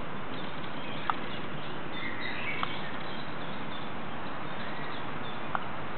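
Small birds chirping a few short notes over a steady outdoor hiss.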